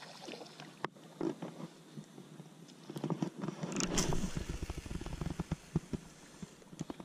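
Baitcasting reel clicking in fast runs as a hooked bass is fought on the rod, with a short rush of noise about four seconds in.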